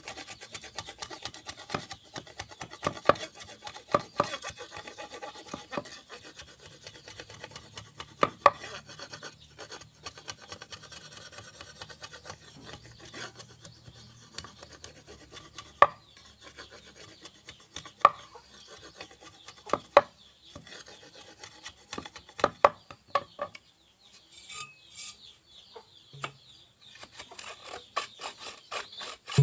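A machete blade shaving and scraping down the end of a wooden pole, in rapid rasping strokes with a sharper knock of the blade every second or two. The scraping thins out near the end.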